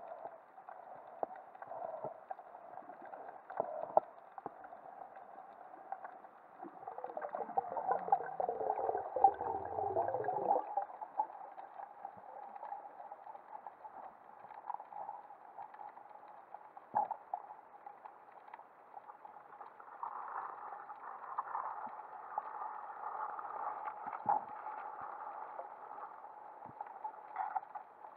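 Underwater sound picked up by a waterproof camera during a spearfishing dive: a steady muffled wash with scattered faint clicks. About seven seconds in, a louder gurgling with falling pitch sets in and cuts off sharply some three seconds later.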